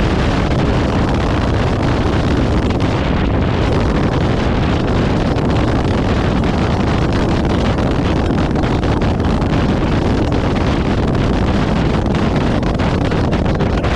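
Steady wind rush on the camera microphone of a Honda motorcycle riding at highway speed, mixed with the motorcycle's engine and road noise.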